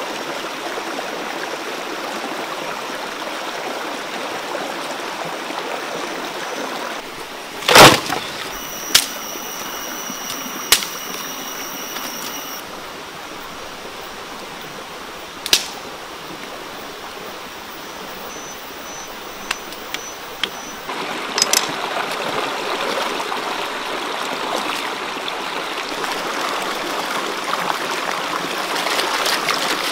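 Rushing stream water running steadily over rocks, broken by a few sharp knocks near the middle, the loudest about eight seconds in. The water gets louder and closer about two-thirds of the way through.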